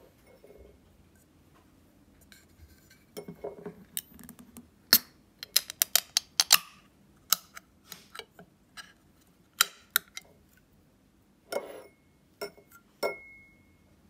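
A run of sharp metallic clicks and taps as fingers work the ring-pull tab of a steel drink can of red bean soup open and handle the can, thickest a third of the way in; one knock near the end rings briefly.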